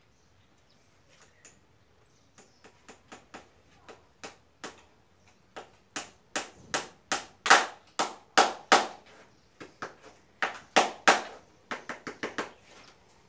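Farrier's hammer driving nails through a horseshoe into a horse's hoof: a run of sharp ringing strikes, light taps at first, then much heavier blows about two to three a second from about six seconds in, with a short break before the last run.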